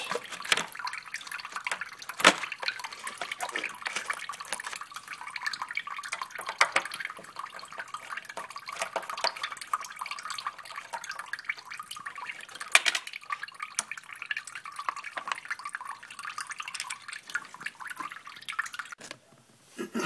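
Water trickling and dripping steadily as the electric water heater's tank drains, with two sharp clicks from a screwdriver on the heating element's terminal screws. The water sound cuts off just before the end.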